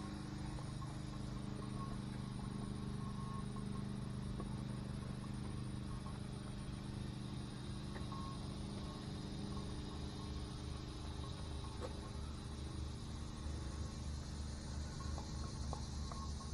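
Crickets chirping steadily over a constant low hum.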